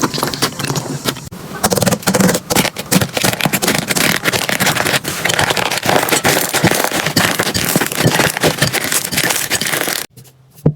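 Slime being squeezed and kneaded close to the microphone, giving a dense run of crackling clicks and pops that stops abruptly near the end.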